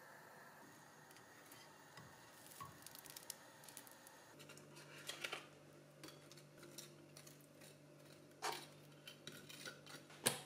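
Faint kitchen handling sounds: a knife scraping spread onto toast, with scattered clicks and knocks of a plate and a plastic tub, the sharpest near the end, over a steady low hum.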